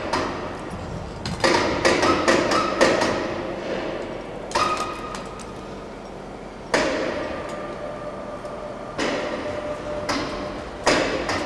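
Metal clanks and knocks from a Geminis GT5i lathe's quick-change turret being raised on a hoist chain off the carriage, each ringing briefly. There is a quick run of clanks near the start and around two seconds in, then single knocks about every two seconds.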